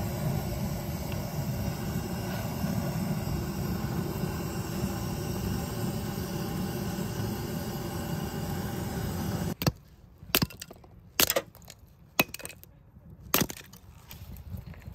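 A handheld butane torch on a gas canister burns with a steady rushing hiss as its flame is held on firewood, then stops abruptly a little under ten seconds in. After it, a hatchet splits kindling: about five sharp chopping strikes, roughly one a second.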